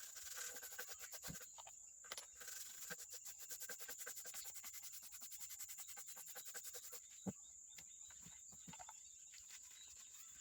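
Rapid, even scrubbing strokes, about ten a second, stopping about seven seconds in. A sharp tap follows, then a few soft knocks, over a faint steady high whine.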